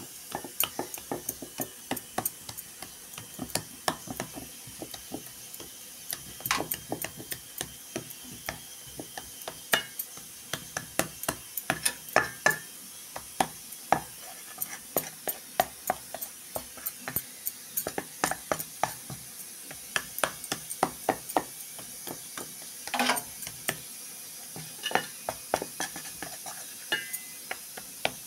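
A flat steel spatula spreading and patting down thick besan barfi mixture in a steel plate, with many irregular sharp clicks of metal tapping on metal, several a second.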